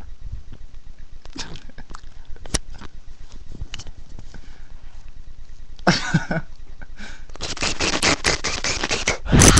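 Close handling noise of a webcam microphone pressed against a face and hair: soft rubbing with many small clicks. About six seconds in comes a louder burst, and near the end a run of louder breathy bursts right at the microphone.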